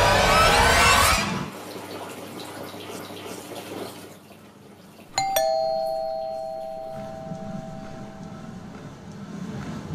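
A two-note electric doorbell chime rings once, a quick ding-dong from a higher to a lower note, both notes ringing on and fading over a few seconds. Before it, a loud rising whoosh cuts off about a second in.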